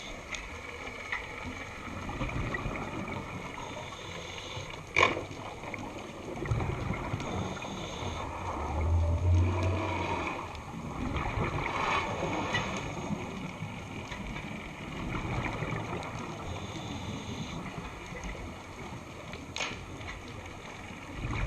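Underwater sound on a scuba dive: a steady wash of water noise with gurgling, a low rumble about nine seconds in, and two sharp clicks, one about five seconds in and one near the end.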